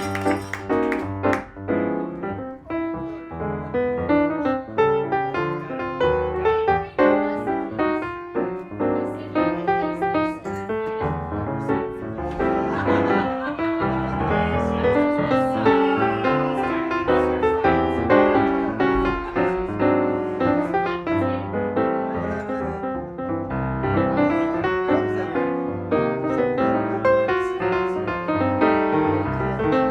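Instrumental piano music with a steady bass line and quick, stepping notes.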